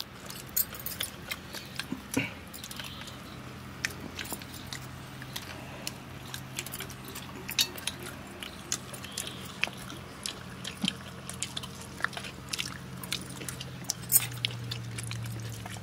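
Eating sounds: chewing, with small irregular clicks and light taps of fingers and food against stainless steel plates. A faint steady low hum runs underneath.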